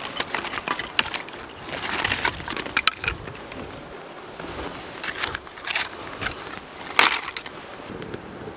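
Dry sticks and kindling clattering and snapping as they are stacked into a fire pile, with crunching in snow midway. A run of sharp cracks, the loudest about seven seconds in.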